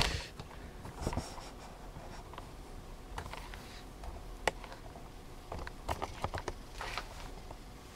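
Handling noise around a wooden workbench: faint scratchy rustling with scattered light knocks and clicks, and a sharper knock at the very start as a cordless drill is set down. No drill running.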